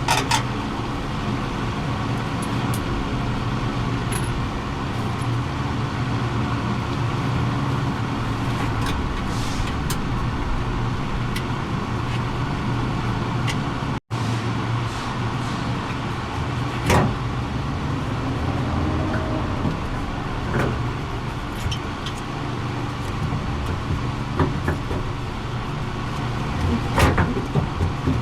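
Steady low mechanical hum, with scattered sharp clicks and knocks from hand work on the truck's front end. The sound cuts out for an instant about halfway through.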